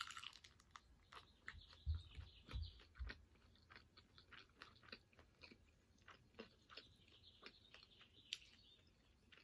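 Quiet, close-up chewing of chicken wings: many small wet mouth clicks and crunches, with a few low thumps about two to three seconds in.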